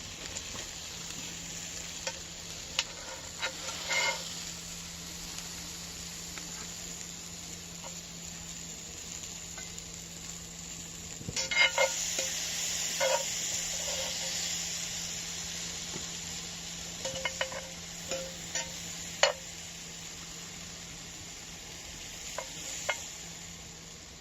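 Food sizzling in a frying pan, swelling louder for a few seconds about halfway through, with scattered clinks and taps of a utensil against the pan.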